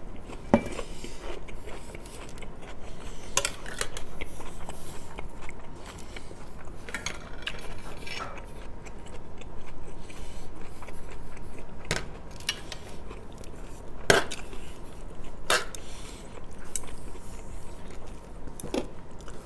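Chewing and eating noises from a mouthful of chelo gousht (rice with stewed meat), with a spoon clicking against the plate several times.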